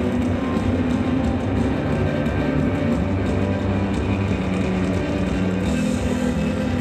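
Loud music from the soundtrack of a 3D projection-mapping show, with a strong steady bass line. The high end grows brighter near the end.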